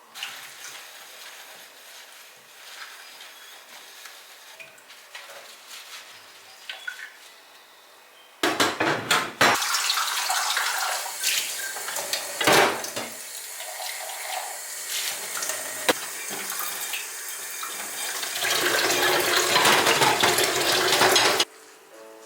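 Kitchen tap running into a sink: after a few seconds of quiet handling with small clicks, the water comes on abruptly, runs for about thirteen seconds with dishes clinking under it, flows heavier near the end, then shuts off suddenly.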